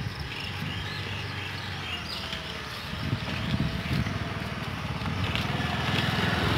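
A motor vehicle's engine running, growing louder toward the end.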